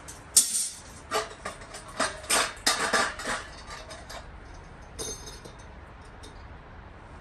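Metal pieces clanking and clinking together, a quick irregular series of knocks over the first four seconds, then one ringing metallic clink about five seconds in.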